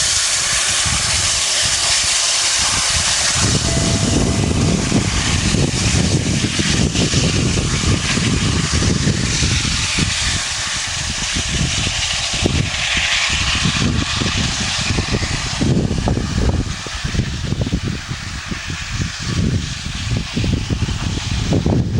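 Soviet L-class steam locomotive hissing steam. About three and a half seconds in, a heavy, uneven low rumble joins the hiss and gusts up and down to the end.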